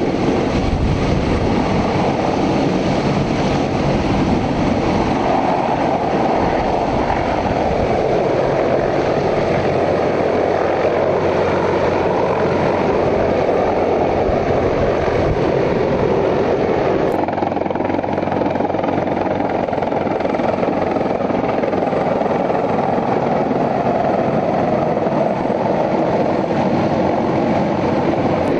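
Sikorsky CH-53E Super Stallion helicopter running: a loud, steady wash of rotor and turboshaft engine noise that holds without a break.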